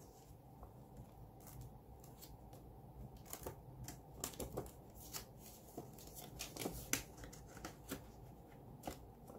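Australian polymer banknotes and plastic binder pockets being handled: soft rustling and crinkling with scattered sharp clicks, the sharpest about seven seconds in.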